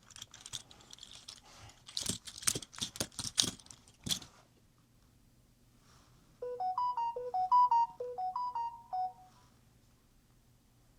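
A run of sharp clicks and rattles for about four seconds, then a short electronic chime melody of clean, stepped notes lasting about three seconds, ringtone-like.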